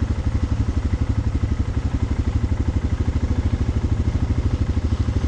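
Single-cylinder four-stroke dual-sport motorcycle engine idling steadily, an even pulsing beat of roughly a dozen firing pulses a second.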